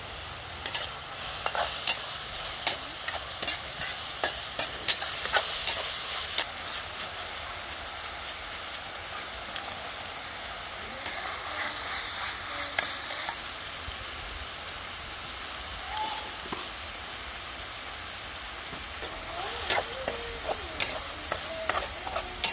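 Minced meat frying in a steel wok, sizzling steadily, while a metal spatula scrapes and clacks against the pan. The clacking comes in a busy run of stirring over the first six seconds and again near the end.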